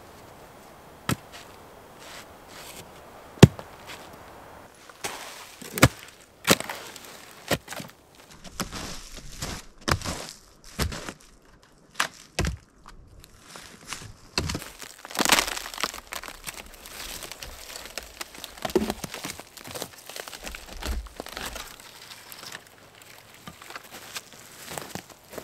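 Dry dead branches snapping as they are broken by hand: a run of sharp cracks, the loudest about three and a half seconds in, with crackling and rustling of twigs between them.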